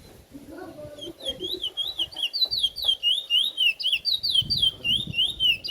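Bullfinch singing a fast run of clear whistled notes, about four a second, each note sweeping up or down in pitch. The run begins about a second in.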